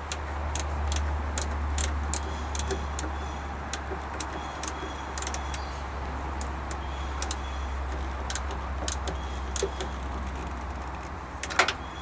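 Irregular small metallic clicks and ticks of a wrench or ratchet and socket extension working the battery cable terminals, with a few louder clicks and rattles near the end, over a steady low hum.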